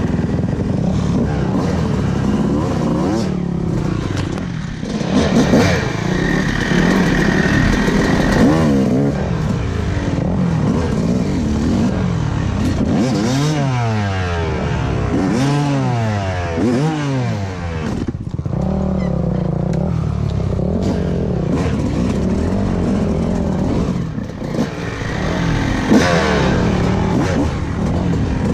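Yamaha YZ dirt bike engine running under the rider's throttle on a rough trail. About halfway through the revs rise and fall several times in quick succession.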